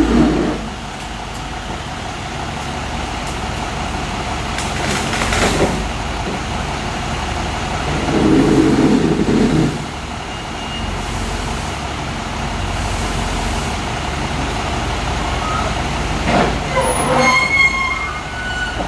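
Case wheel loader's diesel engine running steadily, growing louder for a second or two about eight seconds in as it works the branches, with a couple of sharp knocks.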